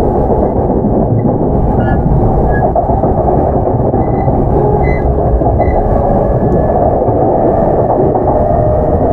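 Running noise heard inside a motor car of a JR East E233-7000 series commuter train with Mitsubishi IGBT-VVVF traction control: a steady, loud rumble of wheels on rail, with a few faint, brief high squeaks.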